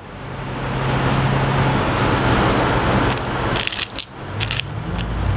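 A steady machine hum with a rush of noise behind it. Three to four and a half seconds in, a run of light metallic clicks comes in, from small screws and hardware being handled on the table.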